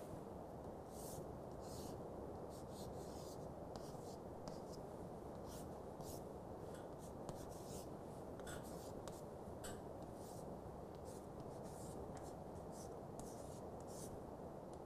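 Chalk drawing and writing strokes on a chalkboard: a run of faint short strokes at irregular intervals, over steady low room noise.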